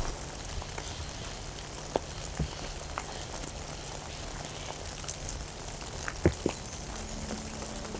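Light rain: a steady hiss with a few louder single drops landing close by, over a low steady rumble.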